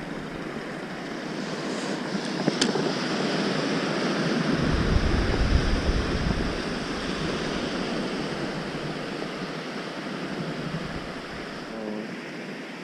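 Small surf washing onto a sandy beach, with wind rumbling on the microphone that swells about halfway through. A single sharp click comes about two and a half seconds in.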